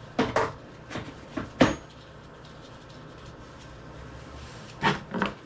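A few sharp clicks and knocks: a cluster in the first two seconds and two more near the end. They come from hands and tools working on a dirt bike wheel rim while the small lock nut is taken off the valve stem.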